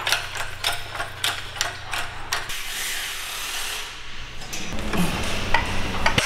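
Hydraulic engine crane being worked with its handle as a transmission hanging from it in chains is lined up with an engine: a quick run of metallic clicks and clanks in the first couple of seconds, then scraping and a few knocks near the end.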